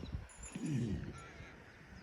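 Irish draught mare rolling on the ground, with a soft thump at the start and a low, wavering grunt about half a second in.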